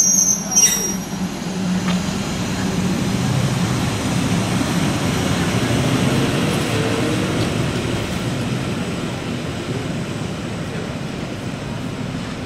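Rhaetian Railway freight train, a Ge 4/4 II electric locomotive hauling container flat wagons, rolling along the track. The running noise of the wheels on the rails fades slowly as the train moves away.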